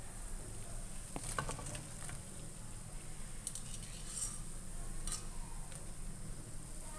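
Vegetable pakoras sizzling in hot oil in a wok, with a few light metal clinks of a wire skimmer against the pan, about a second in and again near five seconds.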